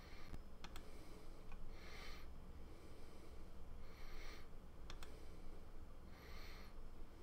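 Faint nasal breathing, a soft hiss about every two seconds, with a few light clicks in between.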